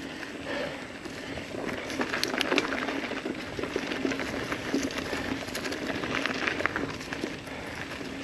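Ibis Ripley mountain bike rolling down a dirt trail covered in dry leaves: steady tyre noise over the dirt and leaf litter, with frequent small clicks and rattles from the bike as it goes over bumps.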